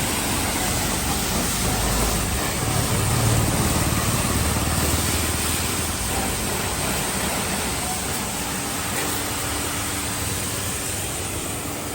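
Pressure washer spraying water onto the motorcycle's parts, a steady rushing noise that starts abruptly.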